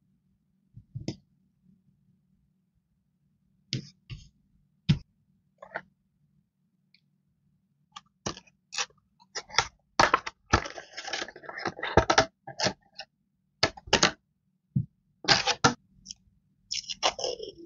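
Washi tape rolls and their clear plastic packaging handled on a tabletop: a few scattered taps and clicks, then from about halfway through a dense run of crinkling, crackling plastic with sharp clicks.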